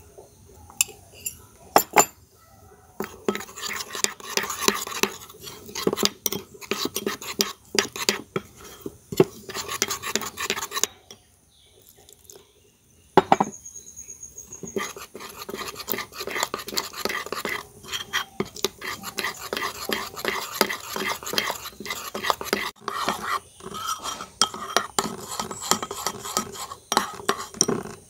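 Metal spoon stirring and scraping inside a ceramic bowl, mixing flour and spices with water into a thick batter: a few separate clinks at first, then a fast, continuous run of scrapes and clinks that stops briefly around the middle.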